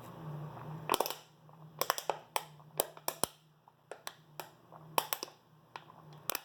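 Irregular sharp clicks and taps of small objects being handled and set down on a table, over a faint low steady hum.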